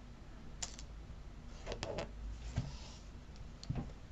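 Faint hand-sewing sounds: fabric rustling and thread being drawn through a stuffed fabric pin cushion, with a few soft clicks scattered through.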